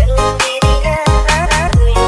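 Electronic dance music with a heavy kick drum about twice a second under a synth melody.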